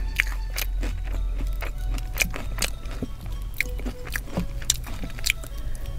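Close-miked chewing of a panko-battered, deep-fried fried-rice ball: irregular wet mouth clicks and small crunches.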